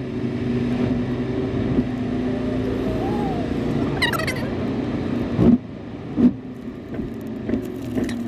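Road and engine noise inside a moving car's cabin, a steady hum, with two loud knocks a little past the middle and a brief high squeak about four seconds in.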